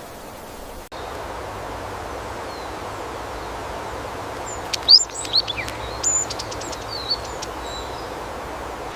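Tropical forest ambience: a steady hiss, with several birds calling from about halfway through, sharp chirps, short whistles and a quick run of clicks, the loudest chirp a little past the middle.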